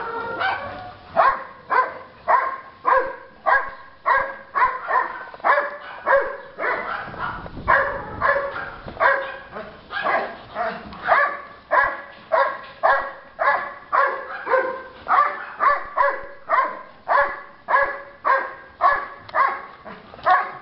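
Dobermann barking over and over in play, about two barks a second, without a break.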